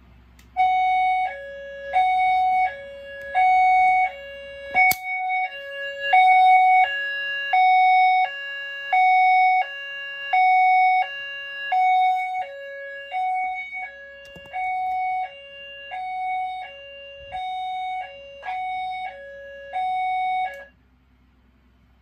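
E70 speaker-strobe sounding a fire signal: a steady high-low two-tone, each tone lasting about two-thirds of a second. It starts just after the beginning and cuts off abruptly about a second before the end, with one sharp click about five seconds in.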